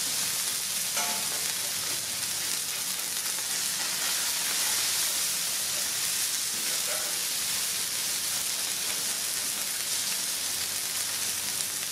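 Smashed beef burger patties sizzling steadily on a hot flat-top griddle.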